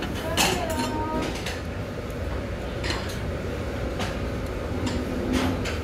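Metal utensils clinking and clicking against dishes and the table, a handful of separate sharp clinks with a brief ring near the start. A steady low rumble of room noise runs underneath.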